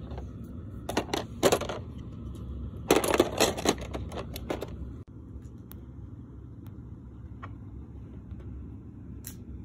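Beyblade parts (metal discs and plastic launchers and layers) clicking and clattering against each other and the plastic stadium as they are handled, in two bursts in the first half. After that only a low steady hum with a few faint ticks.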